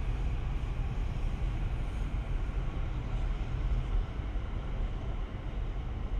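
Freight train running past, a steady noise of wheels on rail heaviest at the low end.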